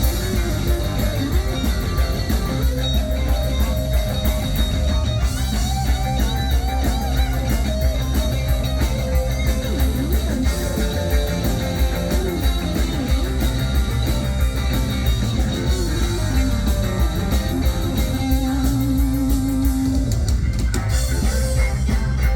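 Live band music in an instrumental passage: a guitar lead with bending and wavering notes over the band, including a held note with vibrato about three-quarters of the way through.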